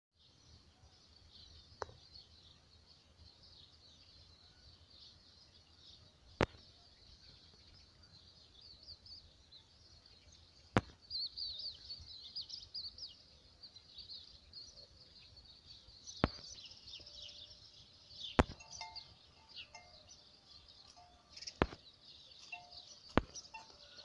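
Small birds twittering and chirping continuously in a dense chorus. Seven sharp, loud clicks stand out above it, spaced a few seconds apart.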